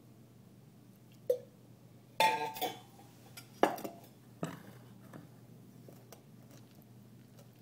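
Scattered clinks and knocks of a metal fork and a ceramic mixing bowl: a knock about a second in, a short ringing clatter about two seconds in, the sharpest knock at about three and a half seconds, and a softer one after it.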